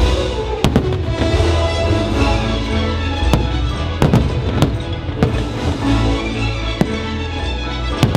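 Fireworks shells bursting overhead in several sharp bangs, unevenly spaced, over loud show music that plays throughout.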